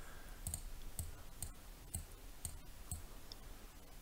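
Faint computer mouse button clicks, a series of short clicks about two a second.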